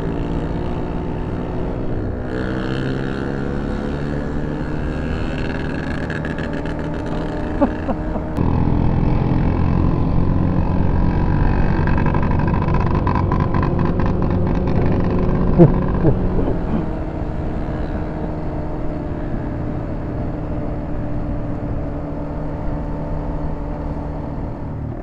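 Motorcycle engine running at road speed with rushing wind, its pitch shifting as the revs change. It opens up and gets louder about a third of the way in, then eases off again after about two-thirds.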